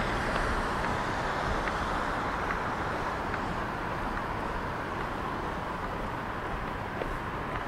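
Steady outdoor street ambience: a continuous hiss over a low rumble, with a few faint ticks.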